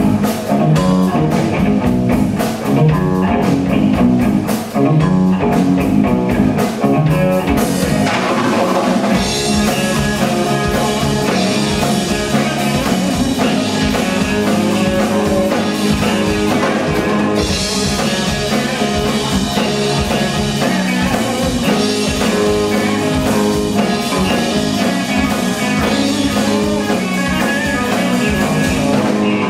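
Live rock band playing electric guitars and a drum kit at full volume. The drumming grows fuller, with cymbals washing over the band, about eight seconds in.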